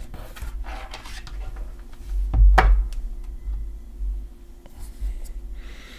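Hands handling plastic VR headset parts and a small cardboard box on a wooden desk: light rubbing and tapping, with one sharper knock about two and a half seconds in.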